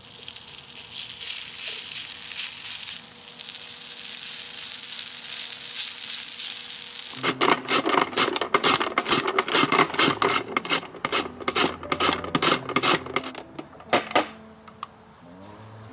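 Shredded potato sizzling as it drops into hot oil in a cast-iron pan, a steady hiss. About seven seconds in, this gives way to a potato being rubbed back and forth over a plastic julienne slicer's blades, about three rasping strokes a second, which stop shortly before the end.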